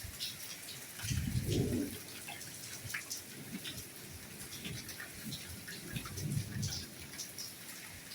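Rain falling steadily with a constant hiss and many separate drops ticking close by. A few duller low thumps of heavier drops come and go, the strongest about a second and a half in.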